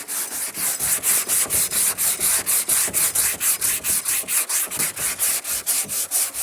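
80-grit sandpaper rasping over cured body filler in quick, even back-and-forth hand strokes, several a second, shaping the filled dent level with the surrounding panel.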